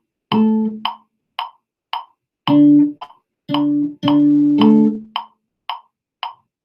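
Electric cello playing short notes against a metronome clicking steadily at 112 beats per minute, about two clicks a second. There is one note near the start and a run of notes from about two and a half to five seconds in.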